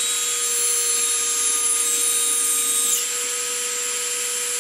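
Rotoforge's electric motor spinning its die in reverse at speed while a hand-held drill bit, gripped in needle-nose pliers, cuts into the die's bore: a steady motor whine under a hissing, scraping grind of the bit cutting metal. The grind shifts about three seconds in and then runs a little quieter.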